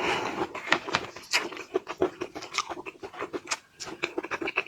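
Close-miked mouth sounds of a person eating shrimp: wet chewing and lip smacks in a quick, uneven run of small clicks, with a longer noisy suck at the start.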